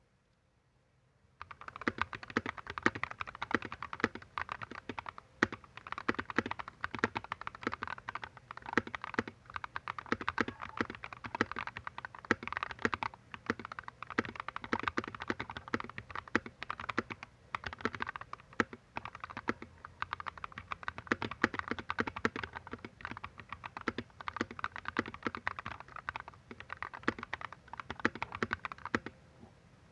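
Typing on a mechanical keyboard with Akko Radiant Red linear switches: a fast, irregular stream of keystroke clacks. It starts about a second and a half in and stops just before the end.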